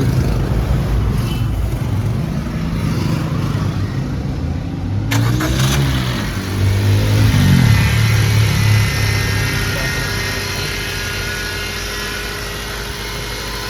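Maruti Ertiga's four-cylinder petrol engine running, revved up and back down about halfway through, then settling to a steady idle. It is running on a freshly replaced alternator bearing.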